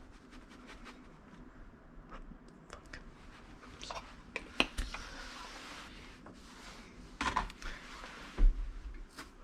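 Kitchen handling sounds: scattered light clicks and taps of utensils and containers, with a couple of brief scraping rustles and one sharp knock about eight and a half seconds in.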